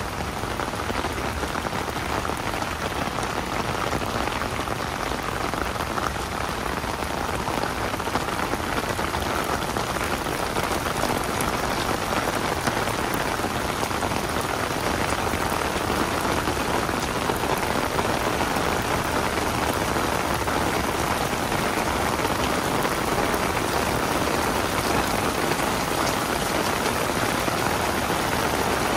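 Heavy rain falling steadily, a dense even hiss of drops pattering on an umbrella overhead.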